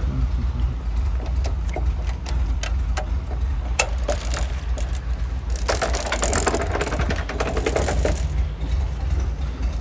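Volkswagen Beetle's air-cooled flat-four engine idling steadily, with scattered sharp clicks. A little past the middle comes a couple of seconds of loud metallic rattling and scraping.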